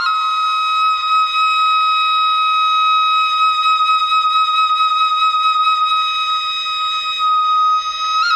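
Thai khlui bamboo flute holding one long high note, steady for about eight seconds, after a quick climb of rising notes; near the end it steps down to a lower note.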